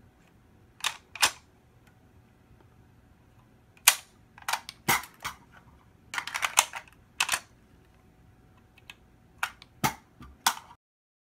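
Magazine of a stainless Ruger Mini-14 being released through a Cogburn Arsenal drop-free magazine release and seated again: a run of sharp metallic clicks and clacks in several quick clusters as the latch is worked and the steel magazine drops out and locks back into the rifle.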